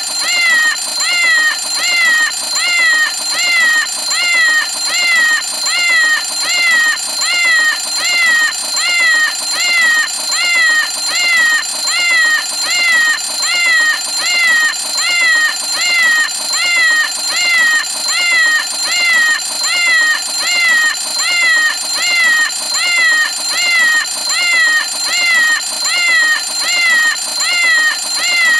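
Cartoon 'Meow o' Clock' cat alarm clock going off: a looped meow repeated evenly, a little more than once a second, each meow falling in pitch, over a steady high tone.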